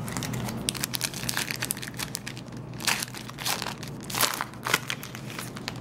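Foil trading-card pack wrapper crinkling and crackling as it is handled and pulled open by hand. The crackles are irregular and come loudest in clusters about three to five seconds in.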